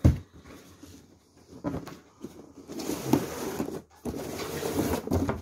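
A cardboard box knocked down onto a table with one thump, then an inner cardboard box slid out of its printed cardboard sleeve, scraping and rustling for a couple of seconds near the end.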